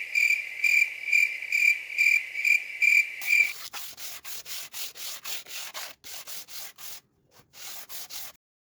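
Sandpaper rubbed by hand over the wooden face of a cricket bat in quick, even strokes, about two to three a second, pausing briefly twice and stopping shortly before the end. A high pulsing tone runs with the strokes for the first three seconds or so.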